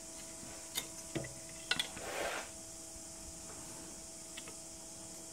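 Light clicks and taps of a steel rule and digital vernier calipers being handled and set against a metal tube on a rubber bench mat, with a short scrape about two seconds in. A faint steady hum sits underneath.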